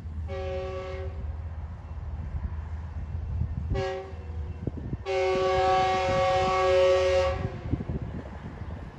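Locomotive air horn sounding a chord of several notes in three blasts: a brief one, a very short one about three seconds later, then a long blast of about two seconds. A steady low train rumble runs underneath.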